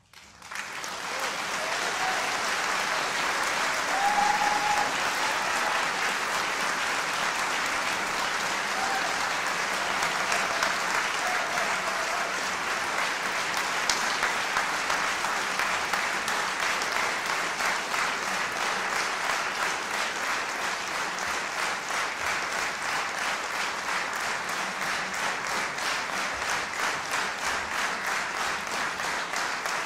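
Audience applauding, starting suddenly out of silence as a piece ends. In the second half the clapping falls into an even rhythm, the audience clapping in unison.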